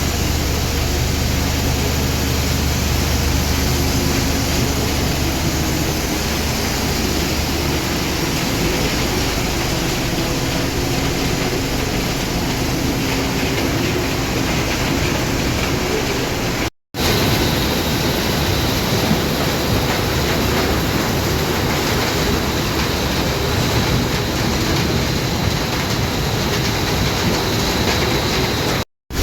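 Sand recycling plant machinery running steadily, a dense mechanical noise with a low hum. It drops out briefly twice and picks up again, the later part carrying a faint high whine.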